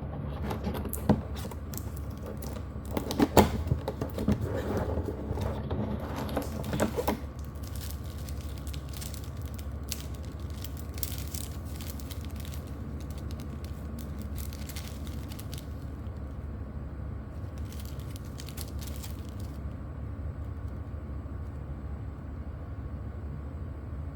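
Packaging being handled during an unboxing: irregular clicks, taps and rustling for about the first seven seconds, then only a steady low background hum.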